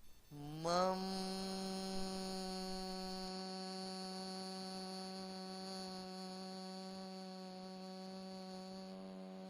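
A voice chanting one long, unbroken meditation tone. It slides up in pitch at the start, then holds steady on one note, changing slightly in vowel near the end.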